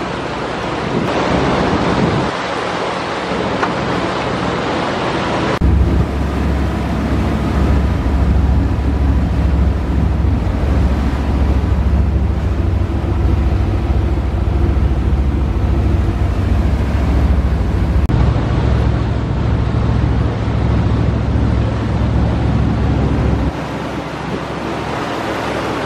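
Wind buffeting the microphone and sea water rushing past a moving sport-fishing boat. From about five seconds in, the boat's engine drones low and steady under the wash of the wake, easing off near the end.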